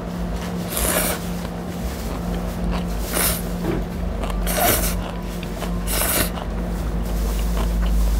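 Slurping jjapaghetti noodles off chopsticks from a pot, four quick slurps about a second and a half apart, over a steady low hum.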